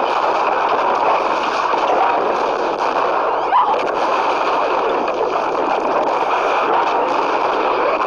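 Dense, continuous film battle din of ship's cannons firing amid crashing and splashing, with a sharp bang about three and a half seconds in.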